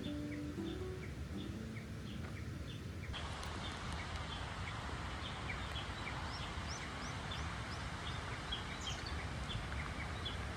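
Birds singing outdoors: a steady run of short chirps about twice a second, joined by higher rising chirps from about the middle on, over a constant hiss. Guitar music fades out in the first two seconds.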